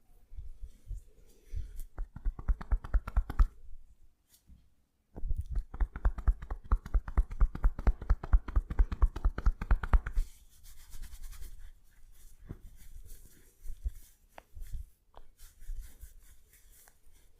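Indian head massage: hands tapping rapidly and rhythmically on a person's head, about six strikes a second, in a short run and then a longer run of about five seconds. After that come softer rubbing and scattered small clicks of fingers working through the hair.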